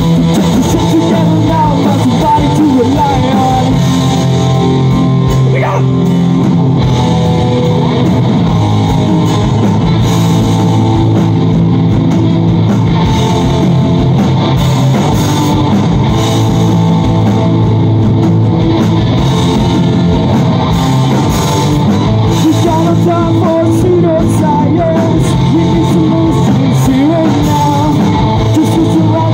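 Live rock band playing at full volume: electric guitars and drums, with a singing voice.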